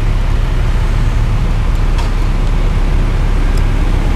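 Steady low rumble of engines and street traffic, with a constant hum underneath. A couple of faint light clinks come through partway in.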